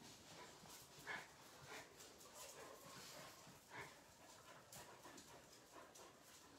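Near silence with faint dog sounds from several dogs moving about on a hard floor: a few weak short sounds about one, two and four seconds in.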